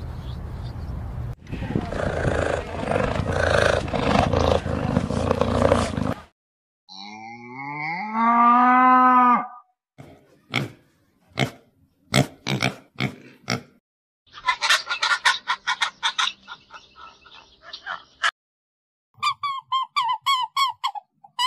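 Calls from several different animals, cut one after another. First a noisy stretch, then one long low call that rises and falls in pitch. Then a run of short sharp calls, and near the end a rapid series of short calls that each fall in pitch.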